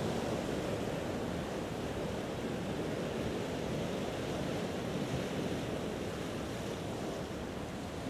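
Ocean surf ambience: a steady, even wash of waves on a beach, with no single breaking wave standing out.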